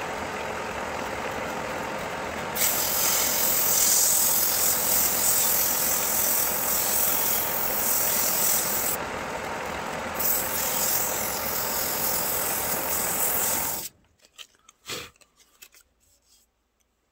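Wood lathe running with a steady hum. About two and a half seconds in, a hand-held pad pressed against the spinning wooden vase adds a loud rubbing hiss, which eases for a moment near the middle. Everything cuts off suddenly about fourteen seconds in, leaving near silence with a few faint knocks.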